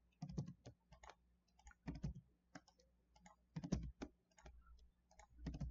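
Scattered, irregular clicks of a computer mouse and keyboard keys, with a few soft low thumps among them.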